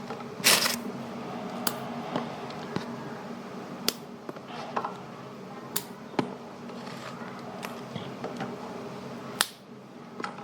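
Knife slicing chili peppers on a cutting board: irregular sharp chops about once a second, the loudest just after the start, over a steady low hum.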